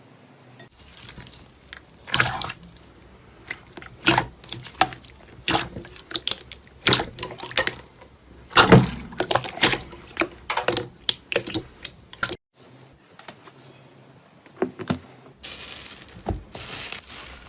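Slime being squeezed and poked: a string of irregular wet clicks, pops and squelches, broken by a short gap about twelve seconds in.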